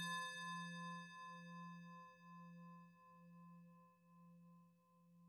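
A singing bowl ringing and slowly fading after a single strike. Its low hum wavers in a slow pulse, about once a second.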